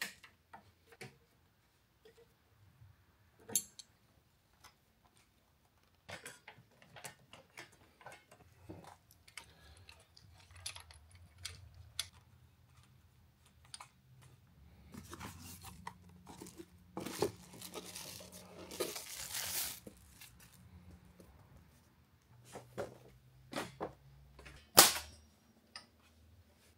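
Hand assembly sounds: scattered clicks and knocks of metal parts and tools being handled and screws being turned into a plastic mounting bracket, with a stretch of rustling and crinkling near the middle and a sharp snap near the end.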